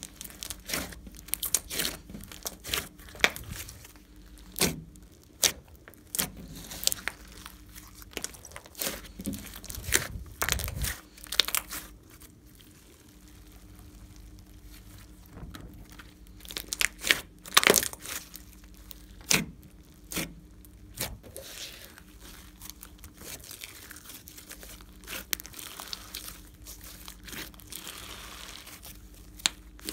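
Glossy slime being kneaded, pressed and stretched by hand: irregular sticky pops and crackles, with a quieter spell about midway and softer crackling near the end.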